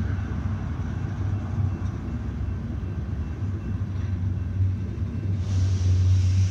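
Double-stack intermodal freight train rolling past: a steady low rumble of wheels on rail, with a brighter hiss coming up about five seconds in.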